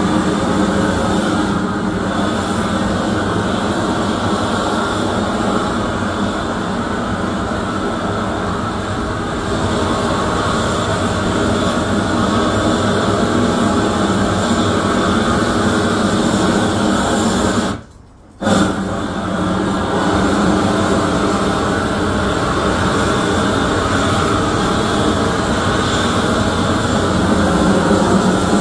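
Propane wand torch burning with a steady roar as its flame is swept over plywood to char the grain. It cuts out for under a second about two-thirds of the way through, then comes back.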